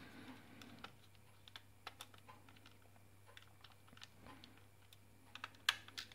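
Small precision screwdriver unscrewing the screws of a plastic Logitech M705 mouse: faint, irregular little clicks and ticks of the tip in the screw heads and of the plastic body being handled, with a louder pair of clicks near the end.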